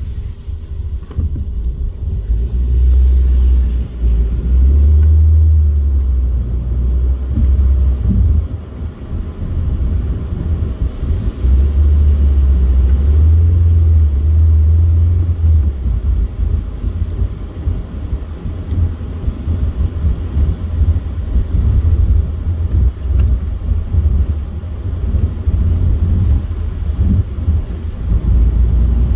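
Car driving at motorway speed: a deep, steady road rumble from the tyres and engine, swelling louder twice for a few seconds.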